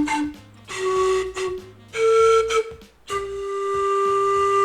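Zampoña malta (Andean panpipe) playing a slow melodic phrase: a note ending at the start, then a note about a second long and a shorter higher one, with a long note held from about three seconds in.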